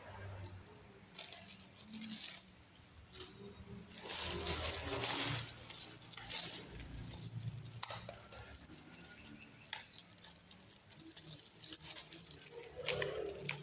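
Handling noises: scattered clicks and taps, with a louder rustle about four seconds in that lasts over a second and another near the end.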